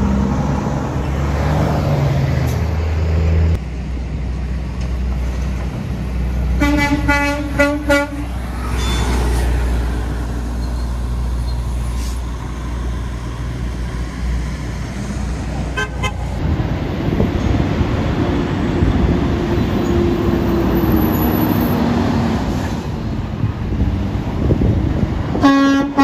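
Semi-truck diesel engines rumbling as the rigs pull slowly past, with a truck horn sounding for about a second around seven seconds in, a brief faint toot around sixteen seconds, and another horn blast near the end.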